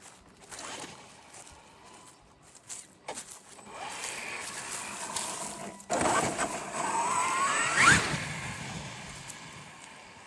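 Traxxas X-Maxx RC truck's brushless electric motor and drivetrain accelerating, with a whine that rises in pitch over a noisy rumble of tyres and gears. It peaks sharply about eight seconds in, then dies away. The driver calls it a weird noise.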